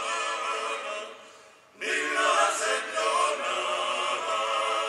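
A choir singing a slow song in long held notes with vibrato. The singing fades away about a second in, then a louder phrase begins.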